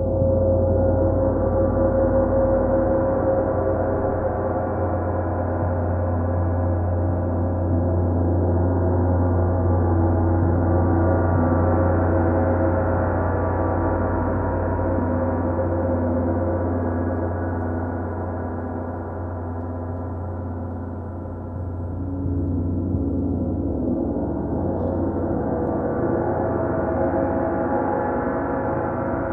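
Paiste bronze gongs ringing together in a dense, sustained wash of many overlapping tones over a deep hum, kept going by a soft mallet played continuously on the gongs. The sound eases slightly after about twenty seconds and then swells again.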